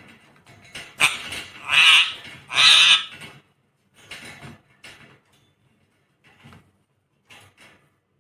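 Indian ringneck parrot calling: three loud harsh squawks in quick succession about a second in, followed by a few fainter short calls.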